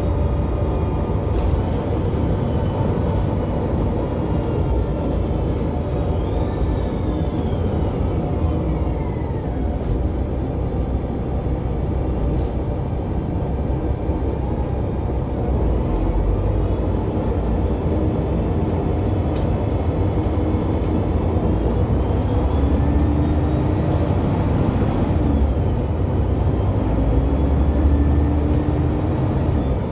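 Transperth bus TP1230 running with a loud, steady, low rumbling. A whine rises and falls in pitch a few times as the bus accelerates and slows.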